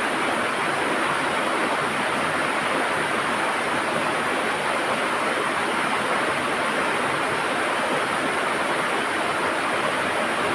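River water rushing and gurgling over rocks, a steady, unbroken flow.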